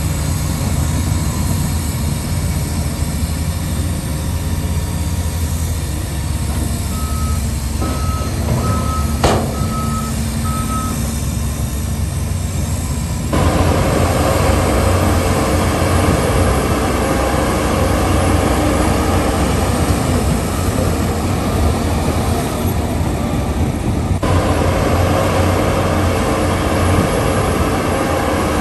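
Heavy diesel machinery running steadily, dump trucks and a bulldozer. From about a quarter of the way in, a truck's reversing alarm beeps for a few seconds at under two beeps a second. A little before halfway the engine sound switches abruptly to a louder, rougher one.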